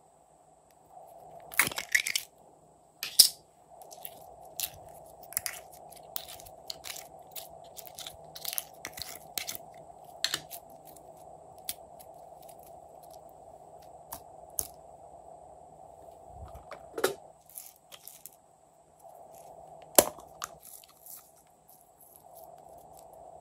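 Sharp plastic clicks and irregular crinkly crackling from a plastic makeup highlighter compact being opened and handled, with a faint steady hum underneath.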